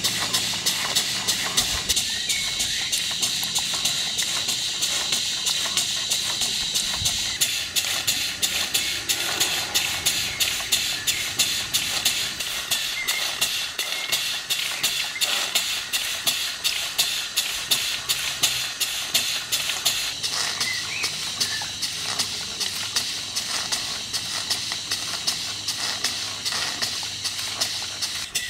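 Model steam beam engine running on live steam: a rapid, even beat of exhaust puffs and mechanical clicks from the valve gear and linkage, over a steady hiss of steam.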